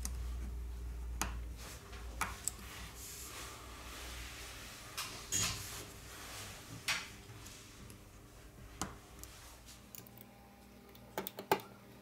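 Light, scattered clicks and taps of small tools and phone parts being handled on a workbench during a smartphone repair, with a quick cluster of clicks near the end. A low hum at the start fades out after about a second and a half.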